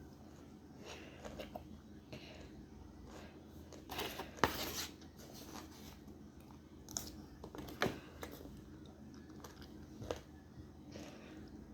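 A person chewing raw hot peppers: faint scattered crunching and mouth sounds, with the sharpest crunch about four and a half seconds in and another near eight seconds.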